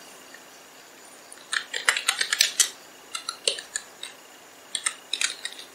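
Typing on a computer keyboard: three short runs of quick key clicks, starting about a second and a half in, around three seconds in, and near the end.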